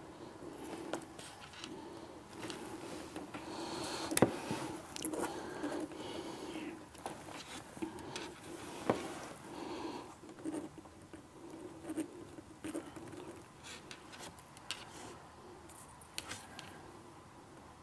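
Pens scratching on paper against a hard desk as two people write, with scattered sharp clicks and taps, the loudest about four seconds in and again about nine seconds in.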